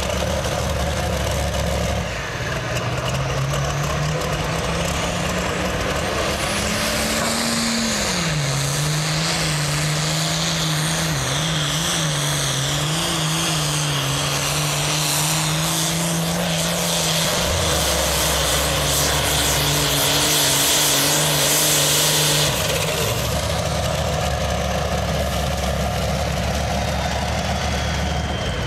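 International 1066 Turbo pulling tractor's turbocharged diesel at full throttle hauling the weight sled. The revs climb for several seconds, get pulled down sharply about eight seconds in, then hold with a wavering pitch before dropping off about twenty-two seconds in. A high whistle slides down near the end.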